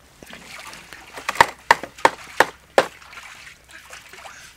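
Knife chopping on a wooden cutting board: a few light taps, then about five sharp strikes roughly a third of a second apart from about a second in.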